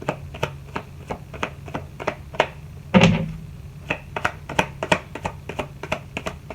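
Steady ticking of about three clicks a second over a low hum, with one loud thump about three seconds in.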